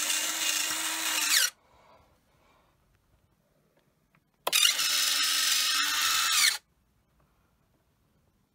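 Turnigy servoless electric retract unit on an RC model's main landing gear, its small motor whining steadily for about two seconds, twice, as the gear cycles up and down. The pitch bends as each run winds down at the end of its travel.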